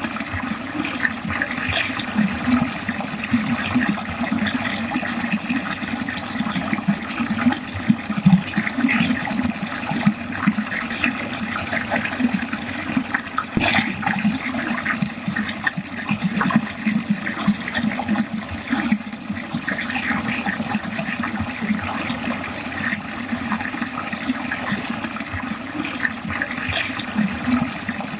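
Water pouring steadily down a drain, gurgling and splashing without a break, with one short click about halfway through.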